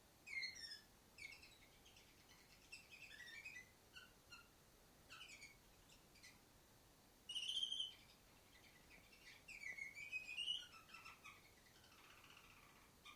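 Female canary singing: faint short chirps and gliding notes in irregular phrases, with louder bursts about halfway through and again near 10 seconds in.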